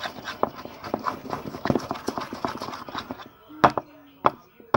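Sticky slime being squeezed and worked by hand, making irregular wet clicks and pops, with two sharper, louder clicks near the end.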